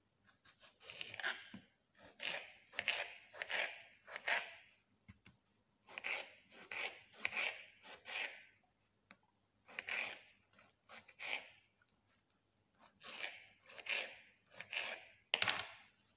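Kitchen knife cutting through a tomato held in the hand, in short rasping slicing strokes that come in bunches of three or four with brief pauses. A sharper, louder cut comes near the end.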